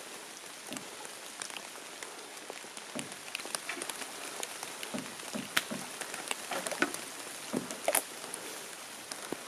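Steady rain falling through the forest, with many scattered drop ticks and a few soft, low knocks, more of them in the second half.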